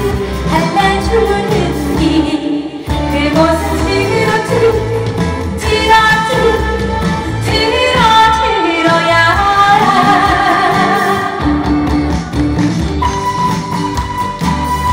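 A woman singing a Korean trot song live into a handheld microphone over a pop-style accompaniment with a steady beat. About ten seconds in she holds a long note with vibrato.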